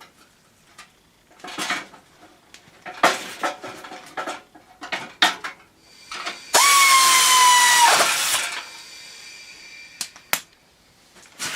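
Handling knocks and clicks, then a power drill runs once for about a second and a half, its pitch sagging slightly as it drives a fastener while the grill is refitted.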